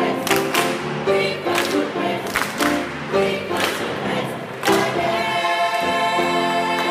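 Mixed choir singing a gospel-style hymn with sharp hand claps on the beat about twice a second; about two-thirds of the way through the clapping stops and the choir holds a long final chord.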